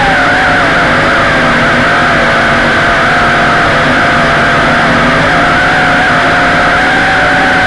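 WLtoys V262 quadcopter's electric motors and propellers whining loudly, heard close up from the camera it carries. The pitch wavers slightly as the throttle changes.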